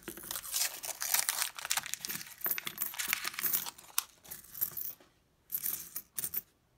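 A paper roll of nickels torn open and the nickels spilling out onto a coin-sorting mat, paper crinkling and coins clinking together. After a short lull, a few more brief clinks near the end as the coins are spread out by hand.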